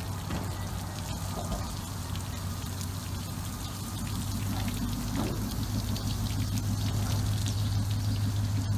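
Water pouring and dripping from a freshly pulled boat hull and trailer onto the pavement, over a steady low hum that grows slightly louder toward the end.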